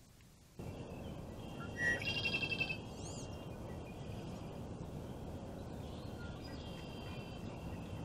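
Birds calling over a steady background hiss, starting abruptly just after the start. A rapid trilled call comes about two seconds in, a quick high whistle rises and falls just after it, and more high calls come near the end.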